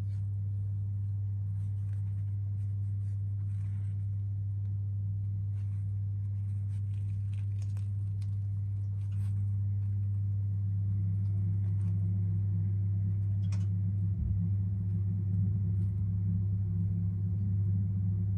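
A steady low hum or rumble, getting slightly louder about nine seconds in, with a few faint soft crackles above it.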